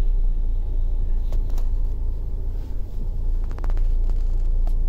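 Low, steady rumble of road and engine noise heard inside the cabin of a Hyundai Creta 1.6 diesel driving slowly over a rough dirt road. A few light clicks come through, a couple about a second and a half in and a quick cluster about three and a half seconds in.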